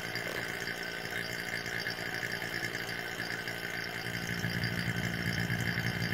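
Small electric vacuum pump running steadily, drawing air out of a resin-infusion bag through a catch can, with the bag not yet down to full vacuum. The low hum grows a little stronger in the second half.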